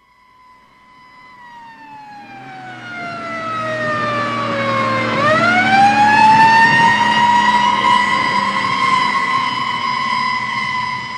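Electronic keyboard sound-effect patch: a siren-like tone fades in and holds, slides slowly down over about four seconds, then swoops back up and holds again over a growing rumble and hiss.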